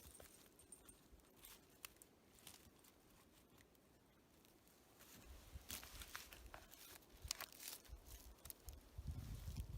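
Faint, scattered crackling and snapping of dry deadwood and twigs being handled, growing busier with low rustling in the second half.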